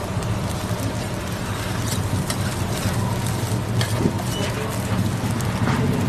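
Metal spatula and tongs clicking and scraping against a flat-top steel griddle as egg-coated buns are turned, a handful of sharp clicks over a steady low hum of background noise.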